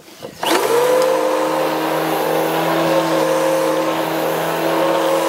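A motor starting up, its pitch rising quickly for about half a second, then running steadily at a constant speed.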